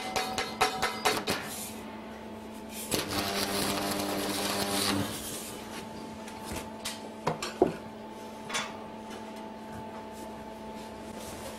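Electric arc welding: the arc crackles in quick snaps for the first second or so, then buzzes steadily for about two seconds and stops. After that come only a few scattered clicks and taps over a steady low hum.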